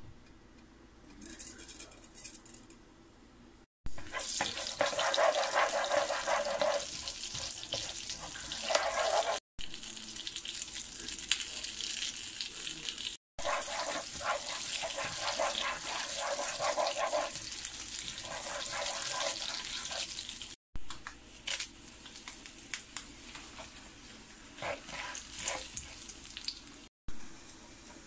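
Cumin seeds and dried red chillies sizzling and crackling in hot oil in a frying pan as a spatula stirs them: the tarka for masoor dal frying. The sizzle starts abruptly about four seconds in, cuts off sharply a few times, and turns to lighter crackling near the end.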